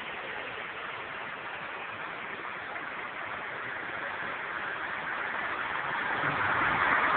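Engine of a WWII-era military truck running as it drives slowly past, growing louder over the last couple of seconds as it draws near.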